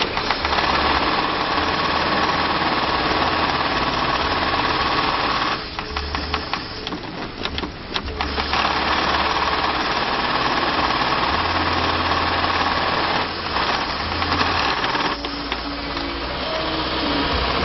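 YOUTIAN 81300A1HL double-needle industrial bag sewing machine (four-thread chain stitch with overlock) running steadily as it stitches the seam of an FIBC bulk bag. About six seconds in it drops off for roughly two seconds, with a few scattered clicks, then runs again, easing off briefly twice more later on.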